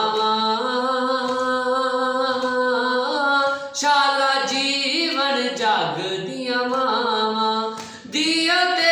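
A man singing a nuha, a Shia lament, with no instruments, in long drawn-out notes that glide and waver. He breaks briefly for breath about three and a half seconds in and again near the end.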